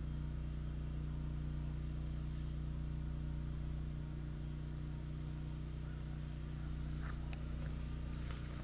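Steady low background hum, with a few faint high chirps and some light taps near the end.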